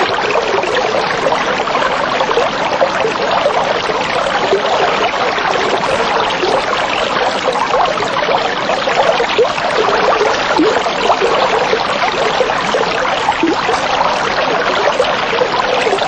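Steady running, trickling and bubbling water, without a break.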